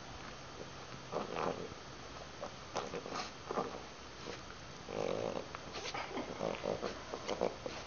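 French bulldog grunting in short, irregular bursts while play-wrestling with a cat, with a longer burst about five seconds in.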